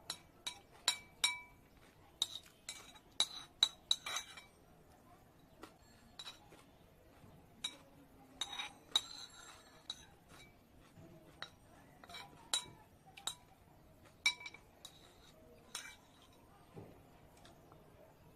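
Cutlery clinking and scraping against a dish while salad is scooped up to eat. The clinks come in irregular clusters of sharp, briefly ringing taps, busiest at the start, again around the middle, and once more toward the end.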